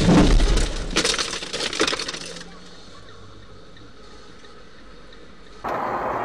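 Road vehicle collision: loud crunching and cracking impact noise that dies away after about two seconds into a low steady background. Near the end a different steady vehicle noise cuts in abruptly.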